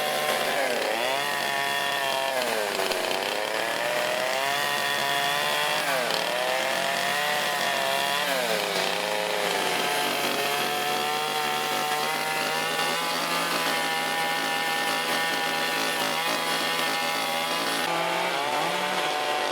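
Gas chainsaw carving into wood. The engine's pitch sags several times as the chain bites under load and climbs back as the cut eases, over a steadier low engine hum.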